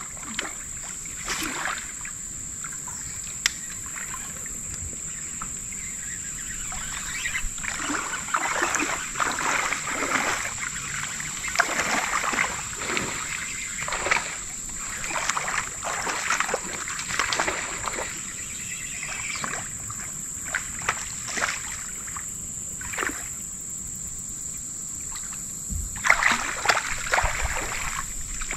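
Water splashing and trickling around a kayak in shallow creek water, in irregular bursts that come thickest through the middle and again near the end.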